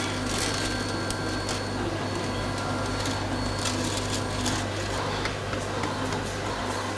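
Desktop 3D printer running with a steady mechanical hum while filament is loaded into it, with a few light clicks of handling.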